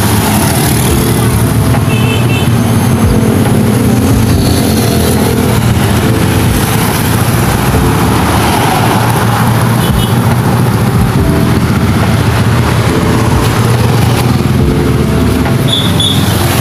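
Motor vehicle engine running steadily close by, a loud, constant low hum with no pauses.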